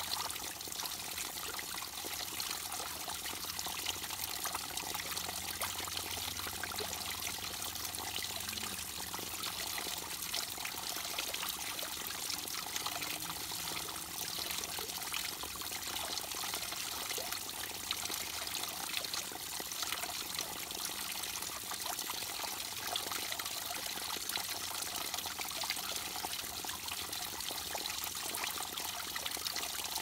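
A small trickle of water falls from a rocky ledge into a shallow pool, splashing steadily with a bright, hissy sound.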